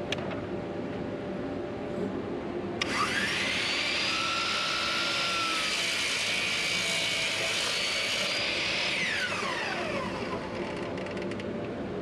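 10-inch compound miter saw motor starting up about three seconds in with a rising whine, running at full speed for about six seconds as it crosscuts the end of a board to square it, then the whine falls away as the blade spins down.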